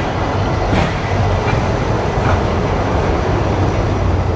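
Great Orme Tramway's cable-hauled tramcar running on its rails: a steady low rumble with a few faint clicks.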